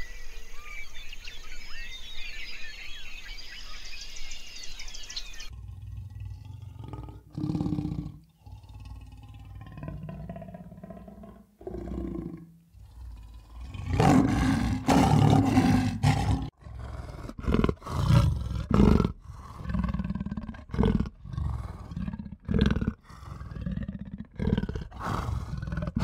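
Small birds twittering for the first five seconds, then a big cat growling and roaring in repeated low, rough grunts that come in spurts and grow louder partway through.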